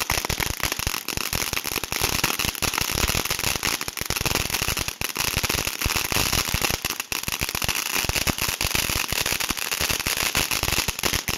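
TNT Oblivion ground fountain firework in the last seconds of its two-minute burn: a steady hiss of spraying sparks packed with dense, rapid crackling pops.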